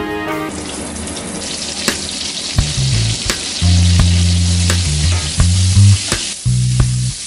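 Sliced onion rings sizzling in hot pork fat in a stainless steel frying pan, with metal tongs clicking against the pan as they are stirred. Background music stops about half a second in, and a low hum comes and goes through the second half.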